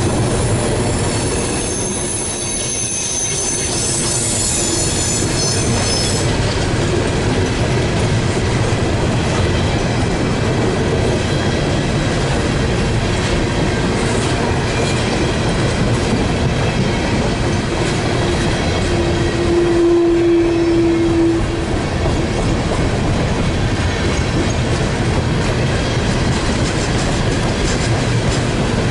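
Empty CSX coal cars rolling past close by, with a steady rumble of wheels on rail. A high-pitched wheel squeal runs through the first several seconds, and a short lower whine comes about twenty seconds in.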